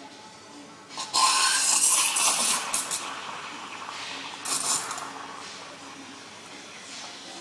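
Faema E61 Legend espresso machine working through a shot: a loud rattling hiss starts about a second in and fades over about two seconds, with a second, shorter burst a few seconds later.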